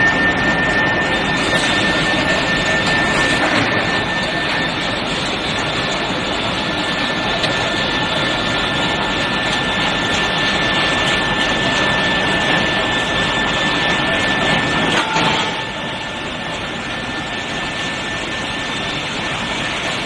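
Steady, loud machinery noise from a steel bar hot-rolling line, with the induction furnace and the powered roller conveyor running. A steady high whine sits over the noise and cuts off about 15 seconds in, after which the noise is a little quieter.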